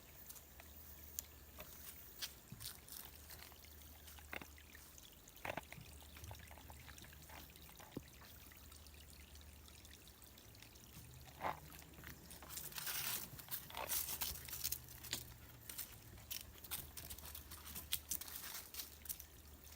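Faint footsteps crunching and rustling through dry fallen leaves on a trail, a scatter of irregular crackles that thickens for a few seconds past the middle.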